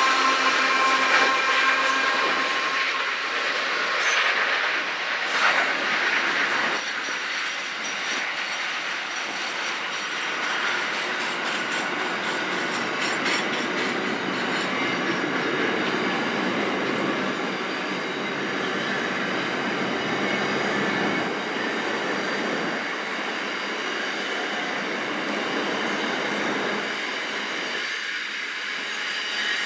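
A long freight train of double-stacked container wagons and car-carrier wagons rolling past: continuous wheel-on-rail rumble laced with steady high-pitched wheel squeal, and a few sharp clacks about five seconds in.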